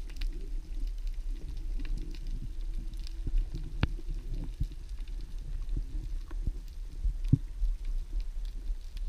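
Underwater ambience heard through an action camera's waterproof housing: a low rumble with scattered small clicks and crackles, and two sharper knocks, one about four seconds in and one about seven seconds in.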